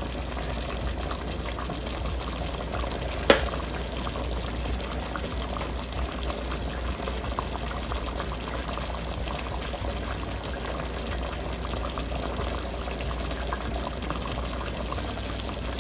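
Coconut-milk curry bubbling steadily in a pot, a dense crackle of small pops, with one sharp click about three seconds in.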